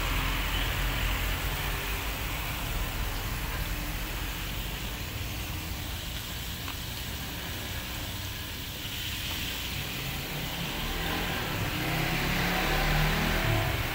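Chicken deep-frying in a wok of hot oil: a steady sizzle over a low rumble.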